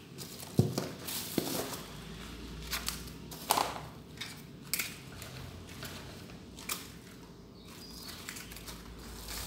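Dishes, pots and cutlery knocking and clinking at a kitchen sink during hand dishwashing: a handful of separate sharp knocks, the loudest about half a second in.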